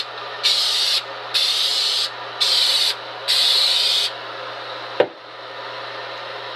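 Dupli-Color clear coat aerosol spray can hissing in four short bursts, each under a second, as light passes of clear are laid on a plastic part. A single sharp click follows about five seconds in.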